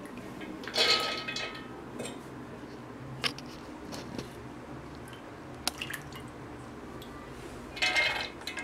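Handfuls of wet, soaked chana dal dropped and pressed into a steel mixer-grinder jar: soft squishing with clinks and a ringing clatter from the steel jar, loudest about a second in and again near the end.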